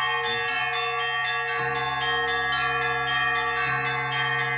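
Russian Orthodox church bells rung by hand: small high bells struck in a quick pattern about three to four times a second over the ringing of larger bells, with a deeper bell struck about a second and a half in.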